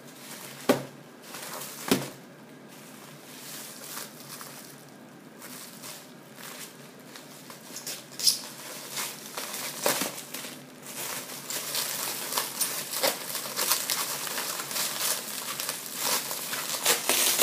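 Clear plastic wrapping being handled and crinkled as an object is unwrapped. Two sharp knocks come in the first two seconds. The crinkling gets denser and louder through the second half.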